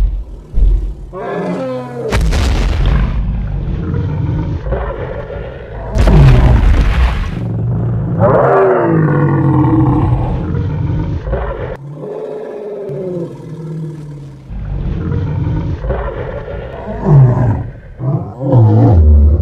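Cartoon creature roar sound effects, several one after another over a deep rumble, some of them starting suddenly and loudly.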